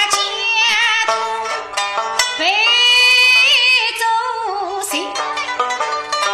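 Suzhou pingtan tanci singing: one voice sings a long, drawn-out phrase with vibrato, accompanied by plucked sanxian and pipa.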